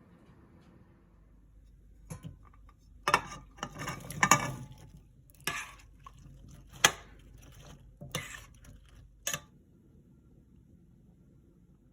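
A kitchen utensil knocking and scraping against a pot or dish in an irregular run of clinks, starting about two seconds in, busiest a little after that, with one sharp knock near the middle.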